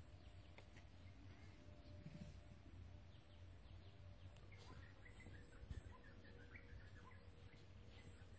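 Faint birds chirping in short, scattered calls over a low steady rumble, with the chirps busiest in the second half.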